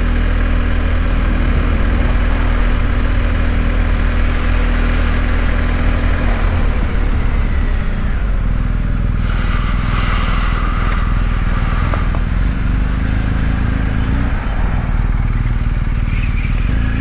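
Motorcycle engine running at low speed, heard from on board the bike; its note shifts about six seconds in and rises briefly near the end.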